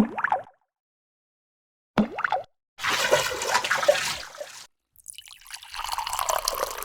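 Short water sound effects cut apart by dead silence: two brief drip-like plops, one at the start and one about two seconds in, then longer stretches of splashing or bubbling water.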